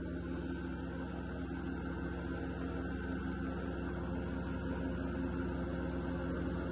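Petrol engine of a Bluebird SHR 1000 series wood chipper running at a steady speed, an even mechanical hum.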